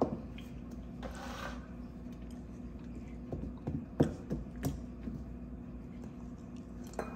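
Wooden spatula stirring thick blended-bean moi moi batter in a stainless steel bowl: a brief scrape about a second in, then a few light knocks of the spatula against the bowl about three to five seconds in.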